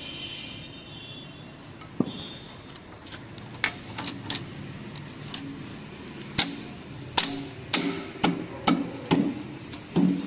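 Tools and metal engine parts being handled: about ten sharp knocks and clinks, coming closer together in the last four seconds, several with a short ringing tone.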